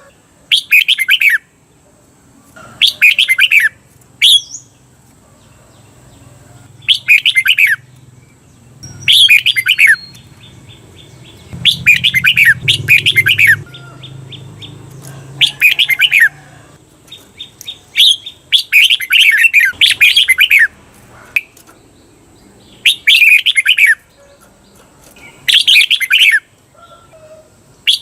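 Red-whiskered bulbul singing loud, short whistled song phrases every two to three seconds, some given twice back to back.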